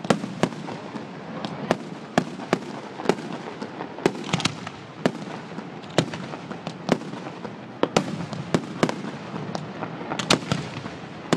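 Fireworks display: a rapid, irregular series of sharp bangs from bursting shells, about two a second, over steady background noise.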